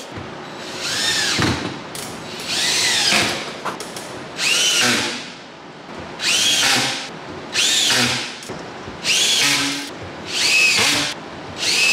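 Cordless drill driving screws in about eight short runs, each whining up in pitch as the trigger is squeezed and dropping as it is let go: screwing soft-close door hinges onto a garage cabinet.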